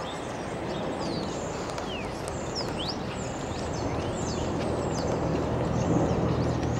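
Outdoor city ambience: a steady low engine hum over a wash of noise, growing louder from about halfway, with scattered short high chirps throughout.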